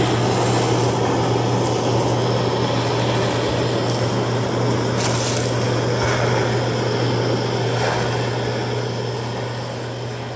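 Hand-held propane torch burning with a steady roaring hiss over a constant low hum as it melts wax into the seam of the slate. The sound slowly fades near the end.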